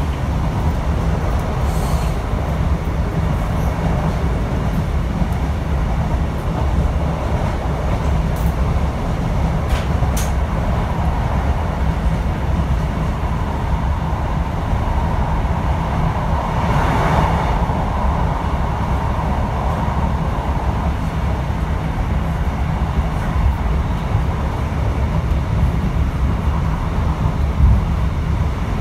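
Inside a British Rail Class 150 Sprinter diesel multiple unit running at speed: a steady low rumble from the underfloor diesel engine and the wheels on the rails. Part way through, a brief louder rushing swell rises and falls back.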